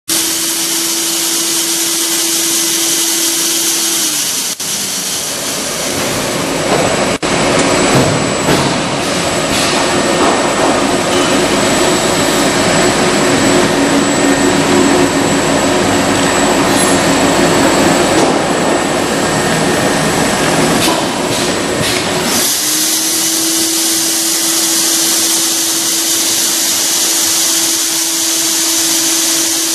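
Machinery of a single-wall corrugated plastic pipe extrusion line running: a steady mechanical hum with one constant tone and hiss. About four seconds in it gives way to a louder, rougher rushing noise, and it returns to the hum about twenty-two seconds in.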